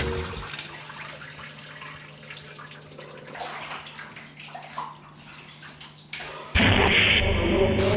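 Water running and splashing in a shower cabin, at first quiet, then suddenly much louder about six and a half seconds in.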